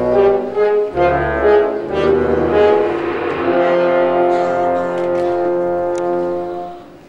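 Live musical-theatre orchestra playing brass-led chords, then one long held chord that dies away near the end.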